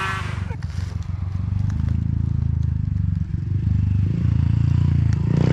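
Dirt bike engine idling steadily at a low pitch, with a few faint ticks and clatters.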